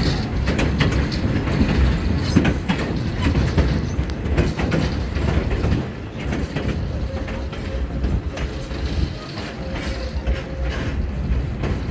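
Open-air passenger car of a train rolling along the track: a steady low rumble with irregular clicks and rattles from the wheels and the car.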